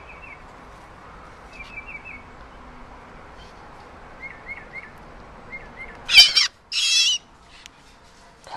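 Young bird held in the hand giving soft, high chirps in short clusters, then two loud, shrill calls about six seconds in.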